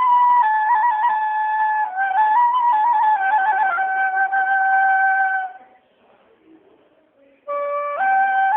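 Background music: a slow melody played on a flute-like instrument, mostly stepping down in pitch. It fades out about five and a half seconds in and comes back about two seconds later.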